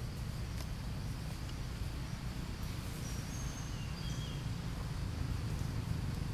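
Outdoor forest ambience: a steady low rumble under a faint, even insect buzz, with a few short bird chirps about three to four seconds in.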